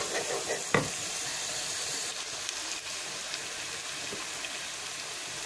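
Thick curry masala sizzling steadily in oil in a frying pan, a constant hiss, with a single knock of the wooden spoon against the pan about a second in.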